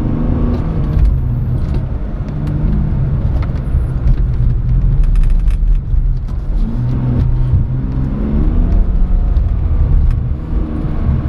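Car engine running as the car is driven, its pitch rising and falling several times as it accelerates and eases off through the turns.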